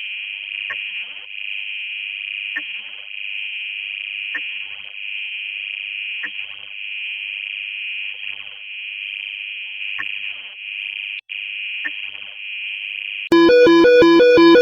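A simulated Emergency Alert System alarm: a steady, high-pitched electronic alert tone held for about thirteen seconds, with faint ticks about every two seconds and a brief break near the end. Loud electronic music then starts abruptly.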